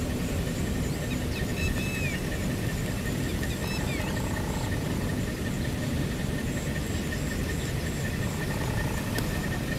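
Open-field ambience: a steady low rumble of wind on the microphone, a thin steady high-pitched tone, and a few short chirps about one and a half and four seconds in.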